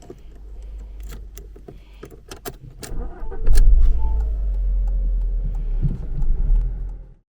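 A run of sharp clicks and jangles, like car keys, then a car engine starts about three and a half seconds in and runs with heavy low-pitched sound. It cuts off suddenly near the end.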